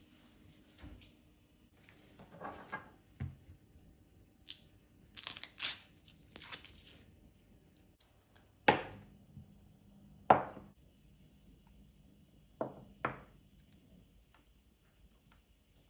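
Scattered handling sounds: short rustles and crinkles, then four sharp knocks with a brief ring, the last two close together.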